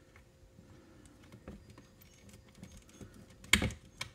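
Small clicks and rattles of a plastic 1/10 scale RC truck's rear end being handled and fitted together, with one louder sharp clack about three and a half seconds in.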